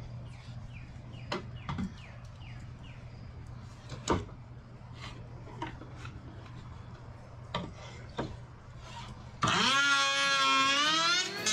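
Quiet steady low hum with scattered sharp knocks and clicks, and a few faint short chirps early on. About nine and a half seconds in, background music starts and becomes the loudest sound. The electric planer is not running.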